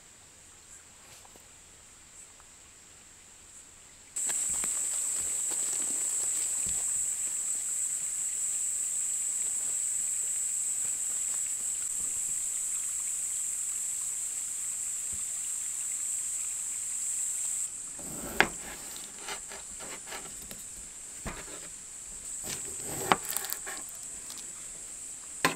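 Insects chirring in a steady, high-pitched drone that starts abruptly a few seconds in. Near the end it drops quieter, and scattered sharp clicks and knocks come in.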